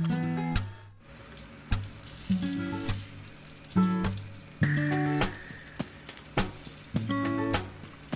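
Hot oil sizzling in a frying pan as tortang talong (eggplant omelets) fry. The sizzle gets louder about halfway through as a patty is turned with a spatula. Plucked acoustic guitar music plays over it.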